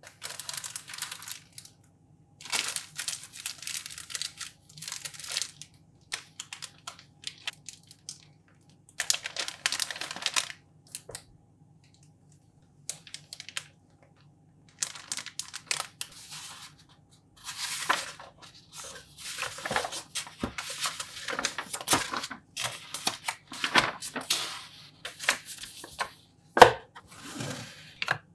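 Clear plastic bags around model-kit parts sprues crinkling and rustling in repeated bursts as they are handled, with a sharp knock near the end.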